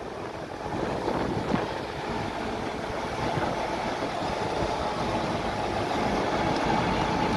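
Engine of the BBÖ 2093.01 narrow-gauge diesel-electric locomotive running steadily close by, growing gradually louder, with a faint steady whine in it.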